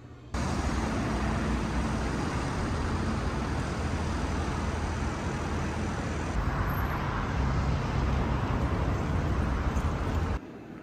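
Steady city street traffic noise, cars and buses running, which cuts in suddenly just after the start and cuts out suddenly near the end.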